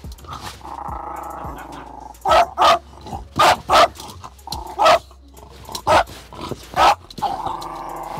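A terrier inside a van growling and barking through the closed window at a person outside, guarding the van. A low growl for the first couple of seconds, then a string of about seven sharp single barks, and growling again near the end.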